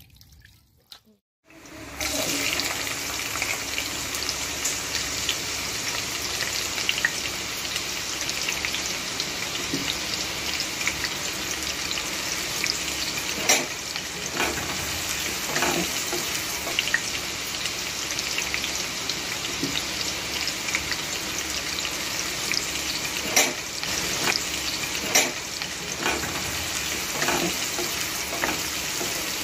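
Sliced onions sizzling in hot oil in a kadai. The sizzle starts about two seconds in and holds steady, with a wooden spatula scraping and knocking against the pan now and then as the onions are stirred.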